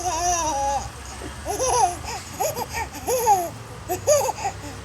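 A baby babbling and laughing: one drawn-out, high-pitched call at the start, then a string of short squeals.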